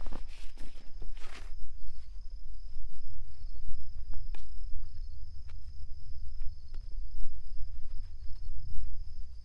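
Wind buffeting the microphone, a low rumble that rises and falls in gusts, with a steady high trill of insects, crickets by the sound of it, behind it. Rustling and a few sharp clicks in the first second and a half, then scattered single clicks.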